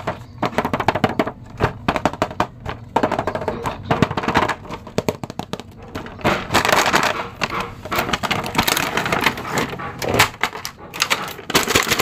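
Cardboard toy box and clear plastic packaging being handled and opened: crinkling and crackling plastic with many small taps and clicks, the crackling thickest in the second half as the figure comes out in its plastic bag.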